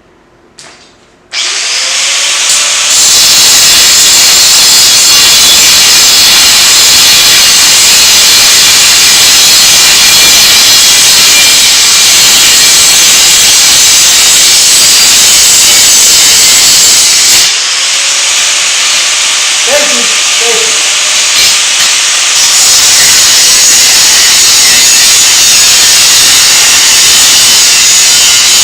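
Abrasive cut-off wheel cutting through a steel seat bracket: a loud, steady grinding hiss that starts about a second in. It eases off for a few seconds about two-thirds through, then bites again.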